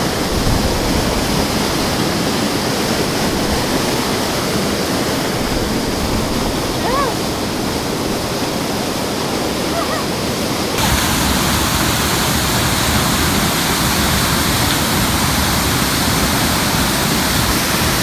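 Waterfall and stream water rushing steadily close by. About eleven seconds in, the rush jumps a little louder and hissier.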